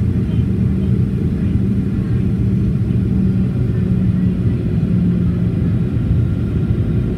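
Steady low rumble of engine and airflow noise inside the cabin of a Boeing 737-800 with CFM56-7B engines, with a steady hum over it.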